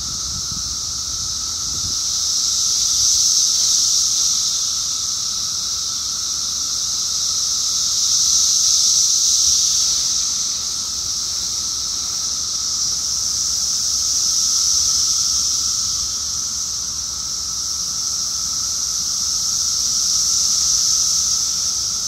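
A dense chorus of Brood X periodical cicadas: a shrill, high hiss that swells and fades every five or six seconds, over a steadier, lower-pitched drone.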